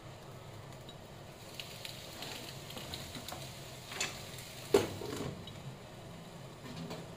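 Mussels crackling and sizzling in a covered pan over a gas burner, with a sharp clank just under five seconds in, the loudest sound, as the glass lid is lifted and the shells are handled, followed by a few smaller clicks.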